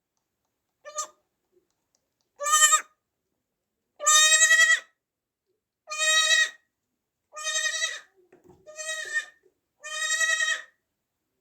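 Newborn baby goat bleating repeatedly: about seven high-pitched bleats, each lasting under a second, with short silent gaps between them.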